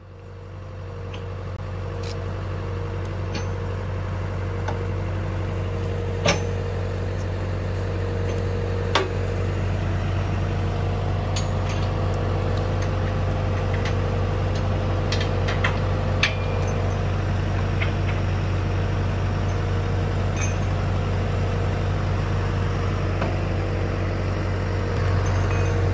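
Tractor engine running steadily, fading in at the start, with a few sharp knocks over it, the loudest about six and nine seconds in; the engine gets a little louder near the end.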